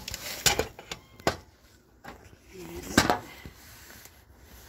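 Handling noise from a phone being repositioned against a fabric pet carrier: three sharp knocks, about a second apart, among soft rubbing of cloth.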